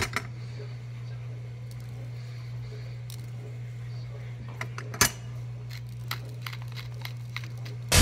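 Light clicks and taps on a kitchen countertop, with one sharp knock about five seconds in, over a steady low hum.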